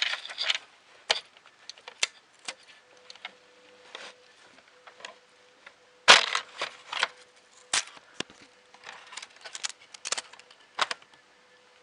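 Hands handling the plastic case and parts of a ZX Spectrum+ home computer: irregular clicks, taps and knocks, with a burst of rustling and clatter about halfway through. A faint steady hum runs under it from about three seconds in.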